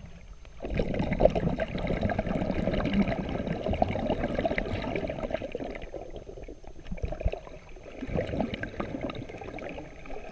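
Water in an underground river sloshing and gurgling, in two stretches: the first starts about a second in, and the second follows a short lull just past the middle.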